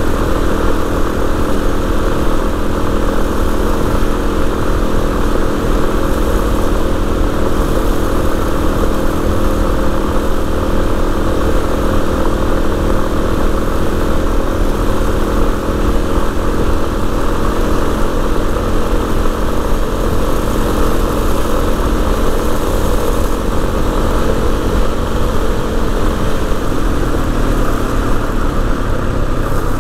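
Yamaha XT250's single-cylinder four-stroke engine running at a steady cruising speed, mixed with wind and tyre noise on a gravel road. About 27 seconds in, the engine note drops as the bike slows.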